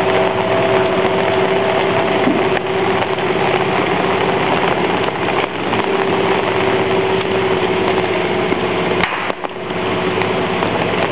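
A small boat's motor running steadily with an even hum as the boat moves through floodwater, dipping briefly about nine seconds in.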